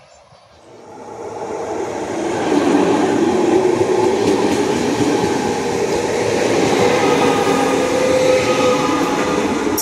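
Double-deck electric passenger train passing close by on the rails. It builds up quickly over the first couple of seconds, then holds a loud, steady rumble and rail noise as the double-deck cars go past.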